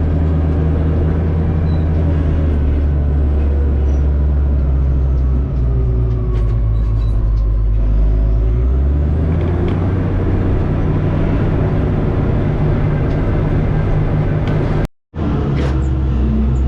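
Diesel engine of heavy earthmoving equipment running steadily under work, its note changing about nine seconds in. The sound cuts out for a moment near the end.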